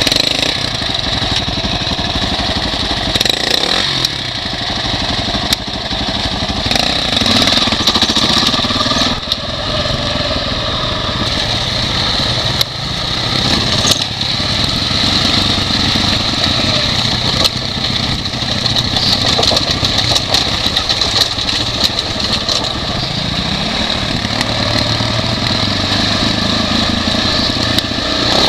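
2006 Husaberg FE550e's single-cylinder four-stroke engine pulling along a rough dirt trail, its pitch rising and falling with the throttle, with frequent knocks and rattles from the bike hitting bumps.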